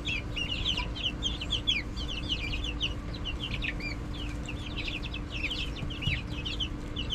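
A flock of young chicks peeping: many short, high-pitched cheeps in quick, overlapping succession, over a steady low hum.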